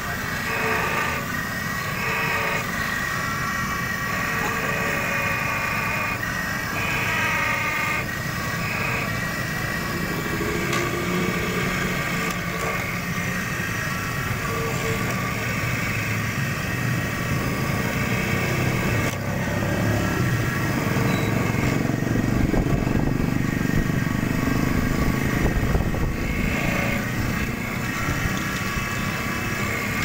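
Electric key-copying machine running, its vertical end-mill cutter milling a metal key blank while a tracer follows the original key. The motor's steady whine shifts in tone as the cutter bites and eases off, and grows heavier for a few seconds past the middle.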